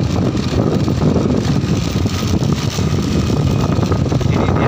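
Motorcycle ridden along a road: a steady wind rush on the microphone mixed with the engine running.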